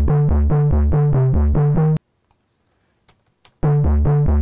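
A software-synthesizer loop of short, fast repeating notes, each note automated to pan between left and right, played back as a stereo audio file. It cuts off suddenly about two seconds in, a few faint clicks follow, and it starts again about a second and a half later.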